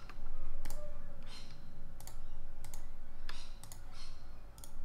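Computer mouse clicking a handful of times at uneven intervals, spaced from about half a second to a second and a half apart.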